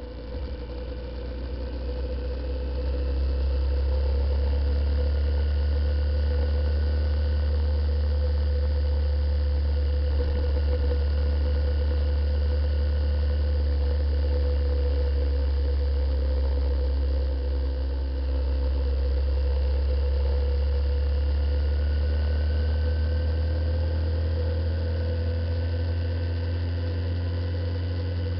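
Wind rumble on the microphone of a moving motorcycle over the steady running of a Honda CBF125's single-cylinder four-stroke engine. It rises over the first few seconds, then holds steady.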